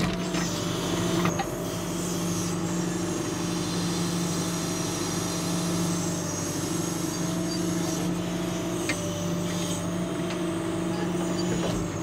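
John Deere 310SE backhoe's diesel engine running at a steady pitch while its hydraulics push a homemade wedge down through a firewood round to split it, with a couple of faint cracks.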